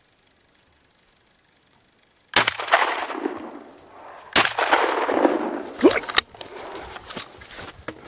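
Gunshots: two loud shots about two seconds apart, each with a long rolling echo, then a further sharp crack about six seconds in and some smaller clicks.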